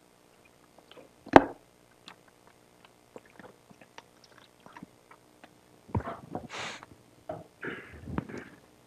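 Quiet pause in a lecture room picked up by the microphone: one sharp click about a second and a half in, scattered faint ticks, then a cluster of soft clicks and rustles with a short hiss near the end.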